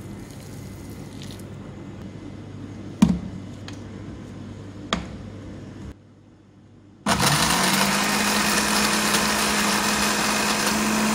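Two sharp knocks, then about seven seconds in a Westpoint electric blender's motor starts, spinning up quickly to a steady high whine as it grinds garlic, dried red chillies, mustard and salt with a little water into a chutney paste.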